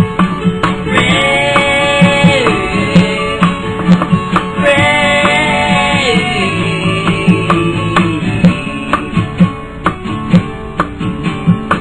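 Instrumental break of an indie rock song: a lead guitar line with notes sliding down in pitch, over a steady drum beat.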